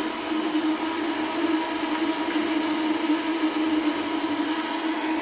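Lab flume's circulating water pump running with a steady hum, over the noise of water rushing through the open channel.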